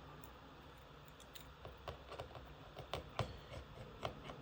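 Faint, irregular small clicks and ticks of a precision screwdriver backing tiny screws out inside an iPad Air 4.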